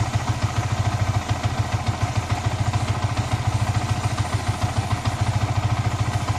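Yamaha R15 V3's 155 cc single-cylinder four-stroke engine idling steadily in first gear on the stand, turning the rear wheel and the new Rolon chain over its sprockets: a fast, even low pulsing.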